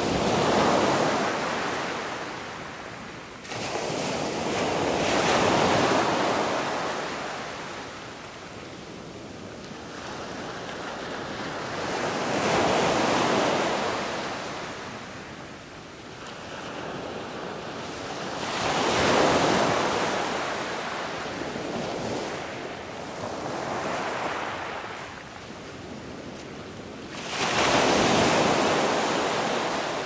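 Ocean surf: waves washing in, heard as about six slow swells of rushing noise that rise and fade every five to eight seconds.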